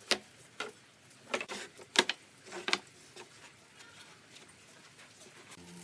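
A series of irregular sharp taps and clicks, about eight in the first three seconds and fainter after. A steady low hum starts near the end.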